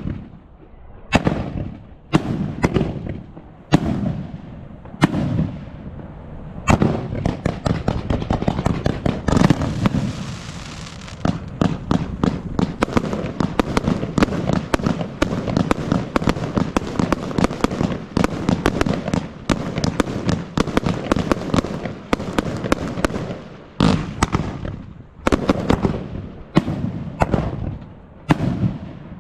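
Fireworks display going off: separate sharp bangs about one a second at first, then a dense, rapid barrage of bangs for about sixteen seconds, easing back to separate bangs near the end.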